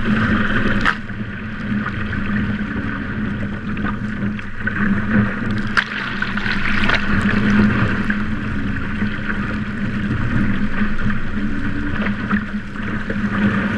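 Water rushing and splashing along the hull of a WindRider Rave trimaran under sail, with spray striking the boat-mounted camera and wind on the microphone. A steady low hum runs underneath, with a few sharper splashes about a second in and around six seconds in.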